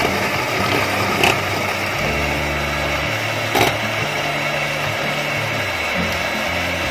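Electric hand mixer running steadily, its beaters whipping instant coffee, sugar and hot water into foam in a glass bowl. Two brief clicks, about a second in and again past three seconds.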